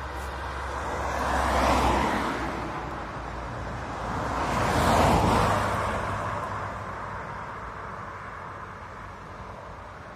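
Two cars pass by one after the other on the road, tyre and engine noise swelling and fading each time; the second pass, about five seconds in, is the louder.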